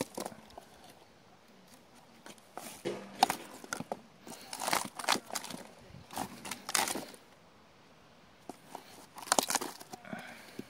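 Loose bark being pried and torn off a beetle-riddled fallen log by hand: a series of crackling, tearing bursts a second or two apart, with snaps of breaking bark.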